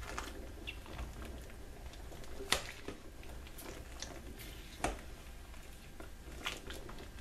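A cooking spoon stirring peanuts in their shells in a pot of brine: soft sloshing and small clicks of shells against one another. There are two sharper knocks, about two and a half and five seconds in.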